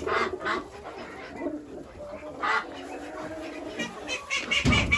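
Penned pigeons and poultry calling in short, scattered calls, with a low thud near the end and a burst of rapid chattering calls starting just before it ends.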